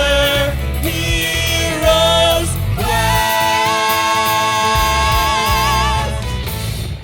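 Musical-theatre cast singing the closing line of a song in harmony over instrumental accompaniment. It builds to one long final note sung with vibrato that ends about six seconds in.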